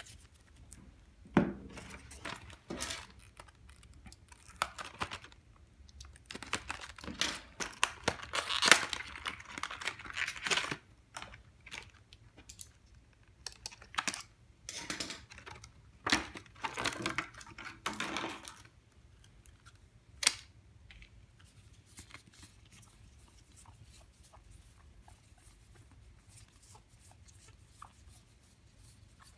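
Cardfight!! Vanguard trading cards being handled: cards slid, flicked and tapped down into piles on a playmat, a run of rustles and light clicks. The handling goes on for the first two-thirds, then it is mostly quiet with a few soft clicks and one sharper tap.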